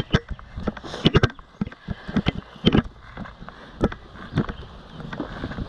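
Irregular clicks and knocks, as of handling gear close to the microphone, over a low rumble of wind on the microphone.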